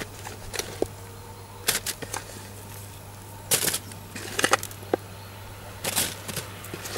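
Short, scattered rustles of aluminium foil and soft knocks as vegetables are dropped by hand into a foil-lined cauldron, with a few faint clicks between them.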